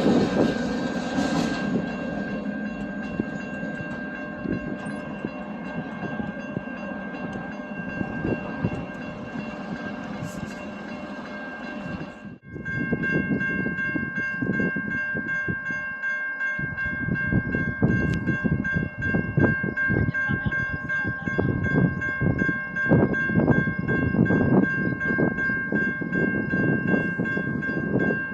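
A train passing close by, its wheels clattering over the rail joints, with steady high-pitched tones running underneath. The sound drops out for a moment about twelve seconds in and comes back with a busier clatter.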